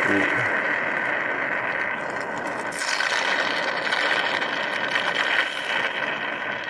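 A homemade vacuum honey extractor sucking stingless-bee honey up a thin tube from an opened honey pot: a steady motor-driven hiss with a slurping suction noise, which gets louder and rougher about three seconds in.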